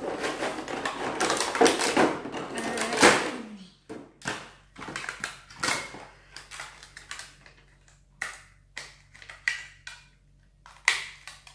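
Crinkling of a clear plastic bag as hands rummage through it, followed by scattered clicks and short rustles of plastic toy parts being handled and snapped onto a plastic robot figure.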